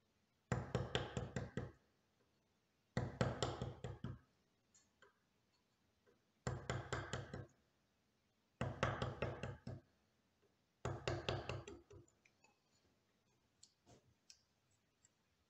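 Wooden mallet striking a chisel, chopping out the waste between the fingers of a hand-cut wooden joint. It comes as five bursts of quick knocks, each about a second long, with short pauses between. A few light clicks follow near the end.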